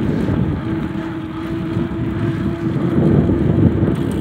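Wind buffeting the microphone of a bicycle rider travelling at high speed, a loud, steady rush. A thin steady hum runs through most of it, from about half a second in until near the end.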